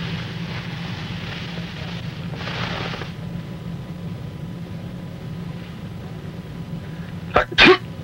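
A person sneezing near the end: a short catch, then the loud sneeze right after. Before it come two breathy hisses, over a steady low hum.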